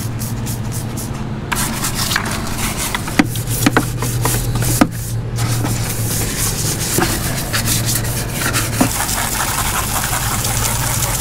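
Plastic scrub brush scrubbing wet plastic console parts, with scraping strokes and a few sharp knocks and clicks. In the last few seconds a garden hose sprays water onto the panels as an even hiss. A steady low hum runs underneath.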